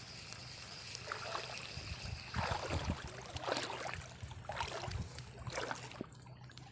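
Shallow seawater splashing and sloshing in several short, irregular bursts.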